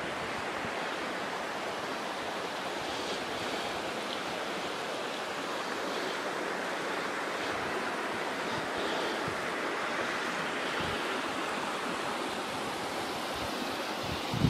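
Steady rush of a shallow mountain creek flowing over rock ledges and small riffles.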